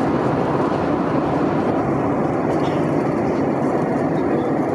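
Steady in-flight cabin noise of an Airbus A320-232: an even rush from its IAE V2500 turbofan engines and the airflow past the fuselage, heard from a window seat beside the engine.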